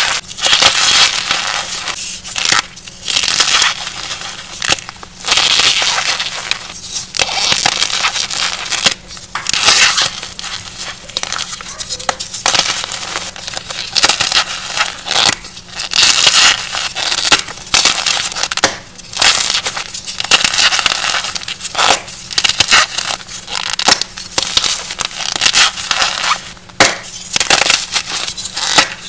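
Blocks of gym chalk loaded with cornstarch being crushed and crumbled in the hands: a continuous run of irregular, loud crunching squeezes, one after another.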